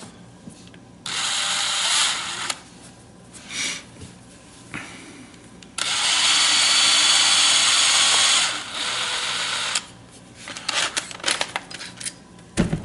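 Drill spinning a turnbuckle to thread the plastic ball cups onto it, in two runs: a short one about a second in and a longer one from about six seconds in. Small plastic clicks of the parts being handled follow near the end.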